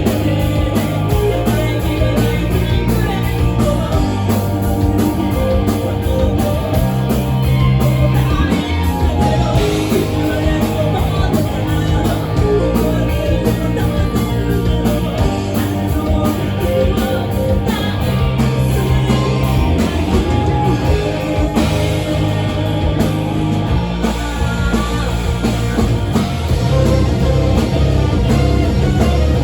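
Rock band playing live: guitar and a drum kit keeping a steady beat, with singing.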